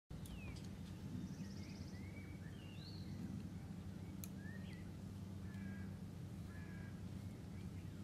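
Birds calling: a scatter of short whistled notes that rise and fall, with a brief buzzy trill near the start, over a steady low hum. A single sharp click sounds about four seconds in.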